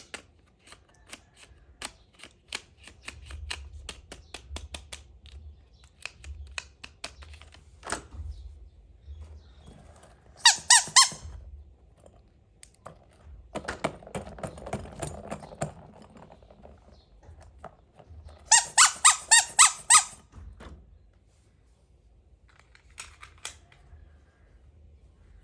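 Small plastic toy pieces handled: many light clicks and taps, then high squeaks, a short run of them about ten seconds in and a louder run of about six later, with some rustling between.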